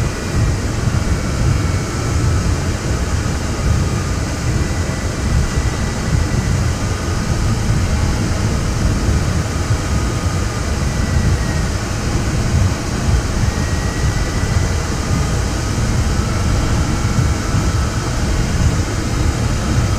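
Steady rush of airflow in an ultralight sailplane's cockpit in gliding flight, a loud low rumble of wind noise with no engine. Faint whistles drift slowly up and down above it.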